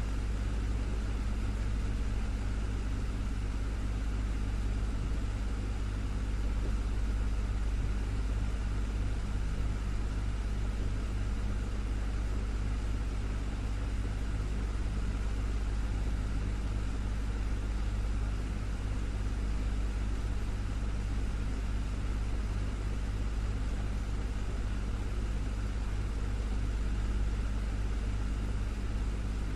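Desktop fan running steadily: even rushing air over a constant low motor hum, unchanging throughout.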